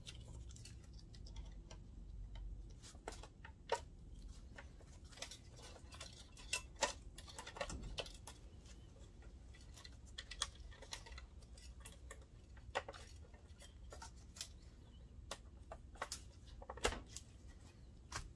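Scattered light clicks and taps, irregular and a few sharper, of gloved hands handling cables and seating connectors on the main board of an opened DLP projector.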